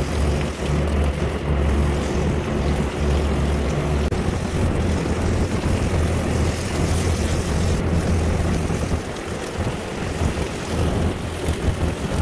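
Water from a hose jet spraying up through a rooftop rack condenser's finned coil, over a steady low machinery hum, with wind on the microphone.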